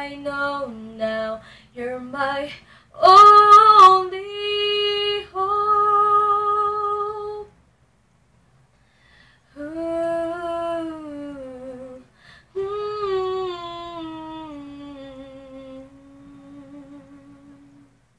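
A woman's voice singing wordless held notes, partly hummed, to close the song. It sings a few short notes, then a loud held note about three seconds in and two more long phrases after a pause. The last phrase slides down and fades away near the end.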